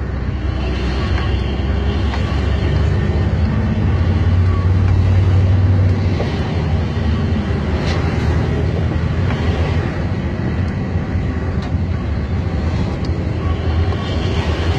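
Engine drone and road noise inside a moving vehicle's cabin at highway speed. The low engine note swells about four seconds in and again near the end.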